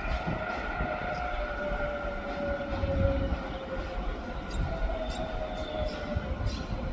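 Taiwan Railway push-pull Tze-Chiang express train hauled by E500 electric locomotives, slowing after passing, with an electric whine that falls slowly in pitch over a low wheel rumble. A few faint clacks of the wheels over rail joints come in the second half.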